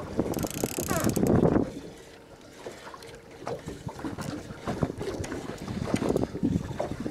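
Wind buffeting the microphone aboard a small fishing boat, with a loud gust about a second in, then scattered knocks and bumps on the boat.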